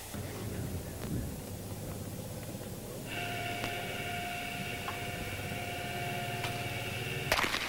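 A steady mechanical whine with several pitches starts about three seconds in over a low rumble. A single sharp handgun shot cracks near the end, the loudest moment.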